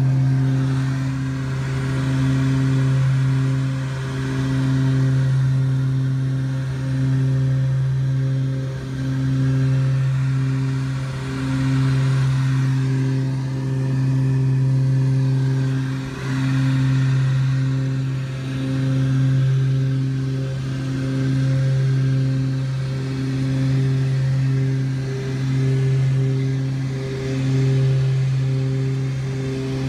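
Twin Pratt & Whitney PT6A turboprops of a Beechcraft King Air 200, heard inside the cabin next to the propeller, running at takeoff and climb power. They make a loud, steady, low propeller drone that swells and fades about every two seconds, the beat of two propellers turning slightly out of step.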